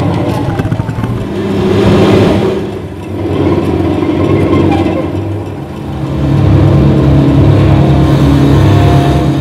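Loud, low amplified drone from a hand-built sound-sculpture instrument, a bicycle wheel turned against a wooden stringed body. It swells and ebbs in slow waves and is fullest and steadiest near the end.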